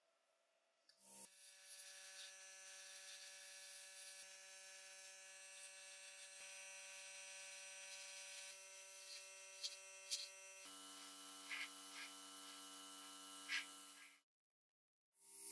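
Small airbrush compressor humming faintly and steadily, with a light hiss of air and a few faint clicks. The hum shifts to a different pitch about ten seconds in and cuts out briefly near the end.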